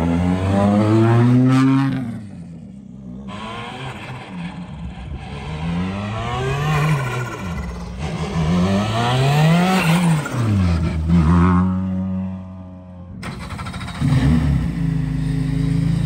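Rally cars' turbocharged engines accelerating past one after another, the engine note climbing and dropping several times as they rev, shift and pass.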